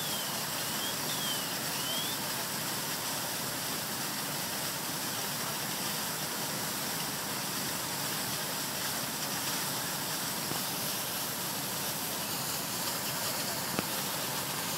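Steady rushing hiss from an electrical transformer fire as firefighters put water on it.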